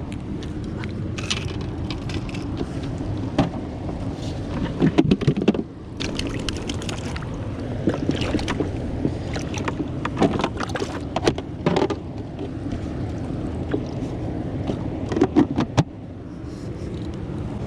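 Steady low outdoor rumble with three bursts of sharp clicks and rattles, about five seconds apart.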